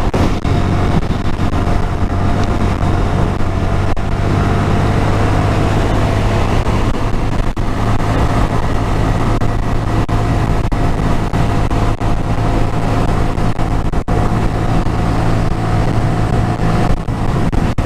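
Honda MSX125SF's 125 cc single-cylinder four-stroke engine running steadily at an even cruising speed, heard from the rider's seat over a haze of wind and road noise.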